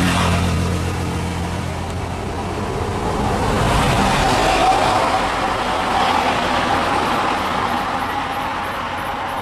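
Motor vehicle engine and road noise, swelling about four seconds in and then easing off.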